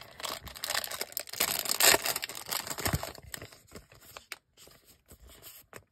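A thin plastic card sleeve crinkling and rustling as a trading card is handled and slid into it. The crackle is dense for about the first three seconds, then thins to scattered soft crackles and ticks.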